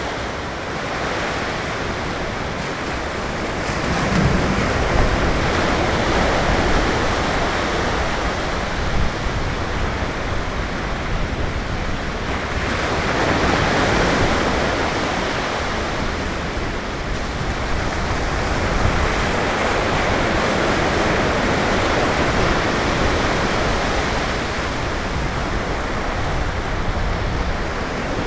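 Ocean surf breaking on the beach: a steady rushing wash that swells every several seconds as each wave breaks, then eases off.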